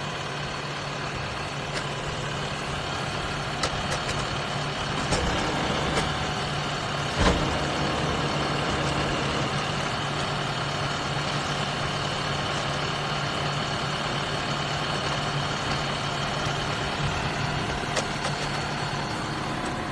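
Tractor engine running steadily, with a few short knocks, the loudest about seven seconds in.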